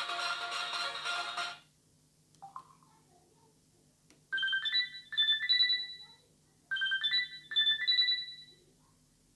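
LG KS360 mobile phone playing ringtones through its speaker: a full-music ringtone cuts off about a second and a half in, a short beep follows, then a simple melody of high beeping notes plays twice, each phrase about two seconds long.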